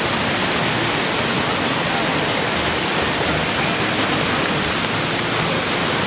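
Steady, even rush of water from a waterfall and river, with no breaks.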